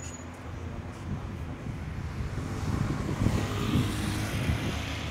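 Street traffic: a motor vehicle running with a steady low hum, growing louder over the second half as tyre hiss rises.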